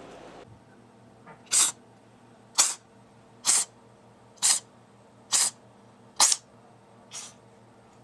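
Cat sneezing seven times in a row, about once a second, the last sneeze fainter: a fit of sneezing set off by sniffing catnip.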